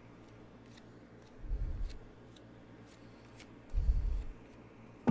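Tarot cards being dealt onto a cloth-covered table, with two soft low thuds, one about a second and a half in and one near four seconds, and faint card clicks between them.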